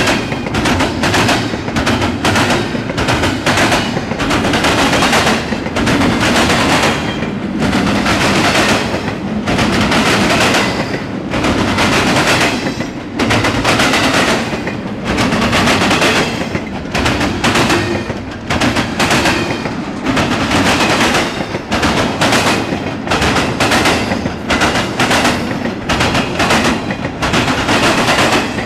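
Norfolk Southern intermodal freight train passing close, its cars and wheels clattering in a rapid, irregular series of loud knocks over a steady rumble.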